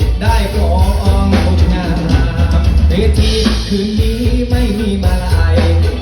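Live band playing an Isan mor lam / luk thung song over a loud amplified PA, with a heavy bass and drum beat under a gliding melodic lead.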